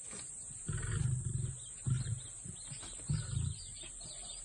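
Lion grunting: three low, pulsing grunts, the first the longest, about a second apart, with faint high chirping of birds or insects behind.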